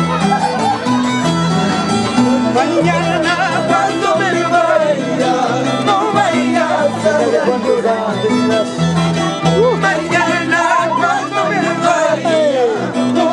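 Live Andean string music: a violin plays a wavering melody over the plucked bass notes of a large Andean harp.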